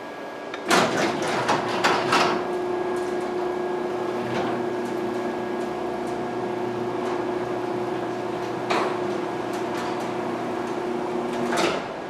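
Overhead garage door opener lowering a double sectional garage door: a burst of clatter as it starts, then a steady motor hum with a few knocks from the door sections along the way. Near the end the door reaches the floor with a clunk and the motor stops.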